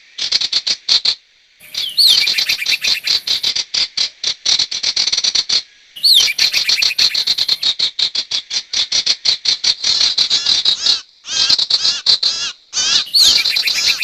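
Bird-trapping lure recording of the small bird known to Indonesian trappers as sirtu: long runs of rapid, sharp chirps pitched high. Several phrases open with a quick swooping note, and the runs are separated by brief silences.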